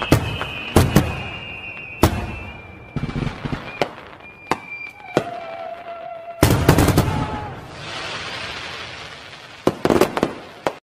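Fireworks display: aerial shells bursting in a string of sharp bangs with crackle. A whistle falls in pitch at the start and another whistle sounds about five seconds in. The sound cuts off suddenly near the end.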